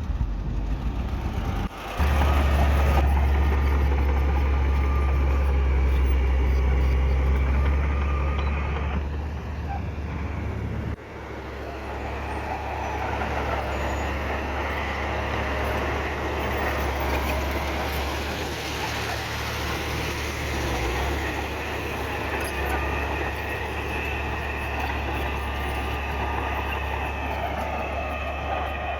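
Heavy diesel earthmoving machinery running, a continuous low engine drone. It jumps louder abruptly about two seconds in, eases off, and changes suddenly again around eleven seconds in.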